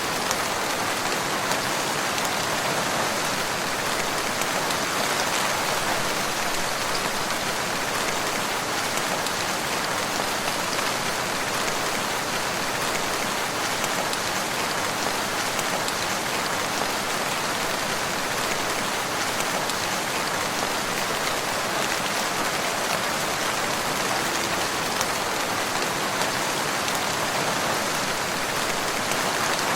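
Steady rainfall, drops pattering on a surface in an even, unbroken hiss.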